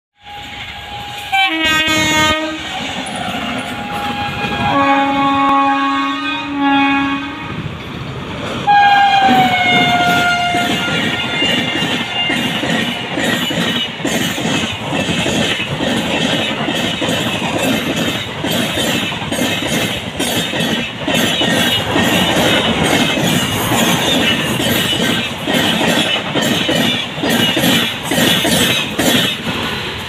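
Express passenger train passing at speed: the locomotive's horn sounds in several blasts, the last dropping in pitch as it goes by, then the coaches rush past with a loud, rapid clatter of wheels over the rail joints.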